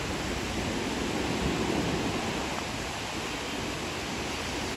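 Small ocean waves breaking and washing up a sandy beach: a steady rush of surf.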